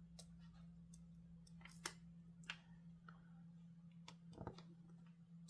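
Faint, scattered clicks of a diamond painting drill pen picking resin drills off a tray and pressing them onto the canvas, a few of them sharper than the rest, over a steady low hum.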